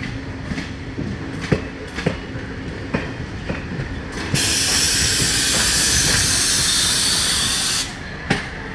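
Indian Railways passenger train running, its wheels clicking sharply over rail joints about every half second. About four seconds in, a loud, even hiss starts abruptly, lasts about three and a half seconds and cuts off suddenly.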